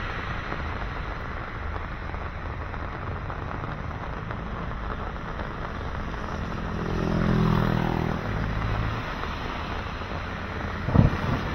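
Steady traffic rumble and wind hiss on a bridge. A passing vehicle's engine swells and fades about two-thirds of the way through, and a sharp knock comes near the end.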